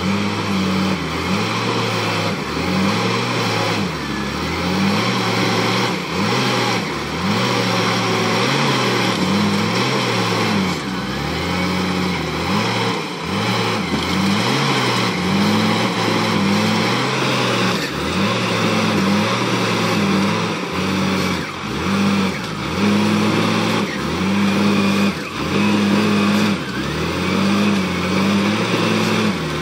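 Wheel loader's diesel engine revving up and falling back over and over as it works under load, pushing a huge log onto a logging truck's trailer.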